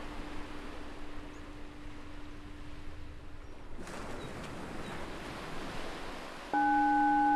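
Recorded ocean surf washing steadily, with a wave breaking about halfway through. Near the end a meditation bell is struck and rings on loudly, one low steady tone with two higher tones above it.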